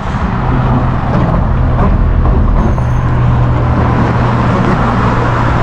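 Busy freeway traffic passing close by: a steady rush of tyres and engines with a low engine drone.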